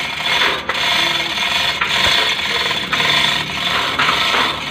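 Freshly rebuilt Isuzu 4JG2 four-cylinder diesel engine running loudly, its new pistons, liners, rings and bearings still tight.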